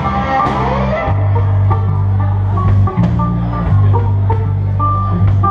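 Live band music: a banjo picking quick notes over an electric bass line, with steady drum hits.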